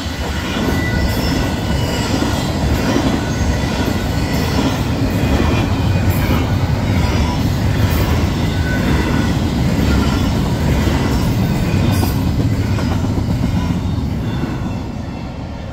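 BNSF double-stack intermodal freight train cars rolling past, a steady rumble and rattle of wheels on the rails that fades over the last couple of seconds as the end of the train goes by.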